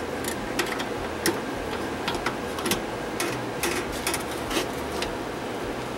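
Thin steel bandsaw blade clicking and tapping irregularly against the blade welder's clamp jaws as it is positioned by hand, over a steady mechanical hum.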